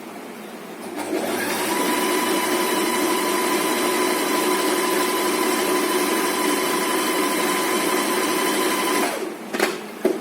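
Usha Janome Stitch Magic electric sewing machine running at a steady speed with a constant pitch. It starts about a second in and stops about nine seconds in, then gives two short clicks.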